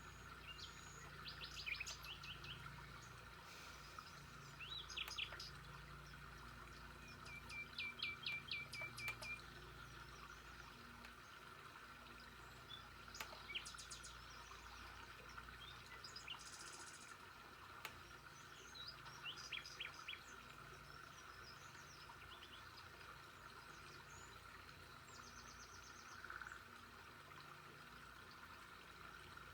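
Birds chirping and calling on and off in short runs of quick repeated notes, one phrase a rapid string of about eight chirps, over a faint steady background of outdoor ambience.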